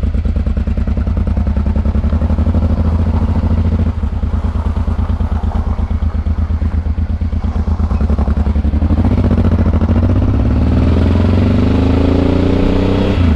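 Honda Transalp 600's V-twin engine ticking over with an even pulsing beat, then pulling away: from about nine seconds in its pitch rises as the bike accelerates.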